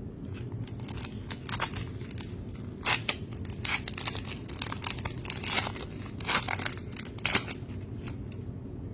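Basketball trading cards and their pack wrapping being handled and flipped through: a series of short, irregular scraping and rustling bursts.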